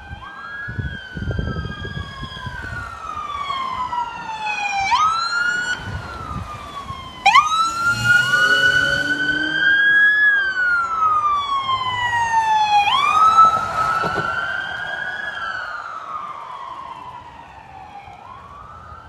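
Police car sirens wailing, several at once and out of step, each rising and falling slowly. They get louder, with a sudden jump about seven seconds in, then fade away toward the end as the vehicles pass and move off.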